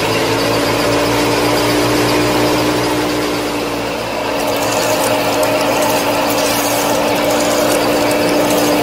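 Small electric motors of a miniature model tractor and wheat thresher running with a steady whine. About four seconds in the sound dips briefly, then carries on with a grittier, rattling edge over the whine.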